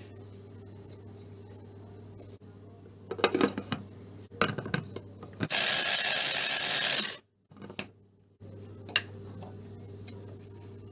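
Electric mini chopper running for about a second and a half, its blade grinding bread into crumbs, then cutting off suddenly. Before it, a few seconds of clattering knocks as the bowl and lid are handled.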